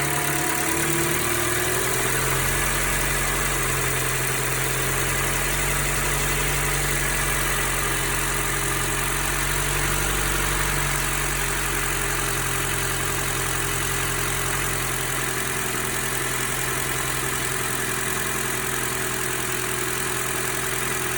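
Toyota Noah (ZRR70) engine idling steadily, a 2.0-litre four-cylinder, with a whine over the engine note that rises in pitch in the first couple of seconds and then holds, and a steady hiss.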